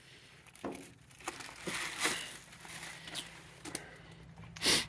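Clear plastic bag wrapped around a new truck side mirror rustling and crinkling as the mirror is handled, with scattered small clicks and a brief louder burst of noise near the end.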